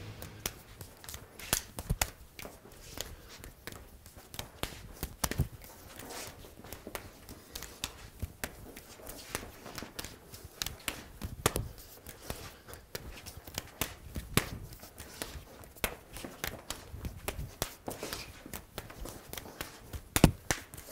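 Light footsteps shuffling on a studio floor and soft slaps of hands and forearms meeting as two men work a fast knife-and-empty-hand partner flow drill, in an irregular run of quick taps, several a second.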